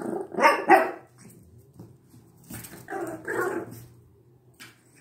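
Boston terrier barking in short bursts: two loud barks in the first second, then a few softer ones about two and a half seconds in.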